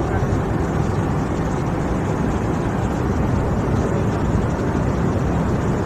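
Steady cabin noise of an airliner in flight: the even rush of engines and airflow heard from inside the passenger cabin.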